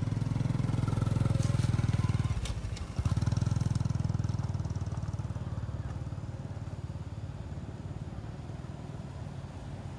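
A motor vehicle's engine running close by, loud for the first few seconds with a brief drop about two and a half seconds in, then fading steadily away.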